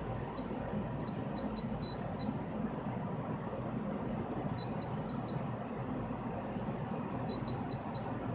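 Multimeter continuity tester giving short high chirps in quick clusters as its probes touch the pins of a flat flex cable, over a steady background hiss.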